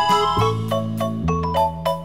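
Light, bouncy background music: quick, short struck notes over held bass notes.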